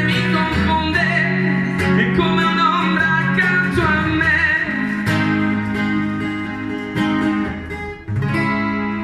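A man singing live to his own strummed acoustic guitar. The voice drops out about halfway and the guitar carries on strumming chords, with a short break and a fresh strum near the end.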